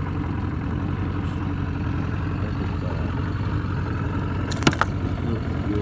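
A steady low motor hum runs throughout. Twice, about four and a half seconds in, there is a sharp metallic click as pliers work a fishing lure's hook free from a trout's mouth.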